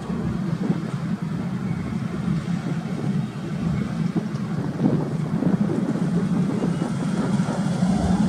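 Heavy diesel trucks running along the highway: a steady, rough low engine rumble of traffic.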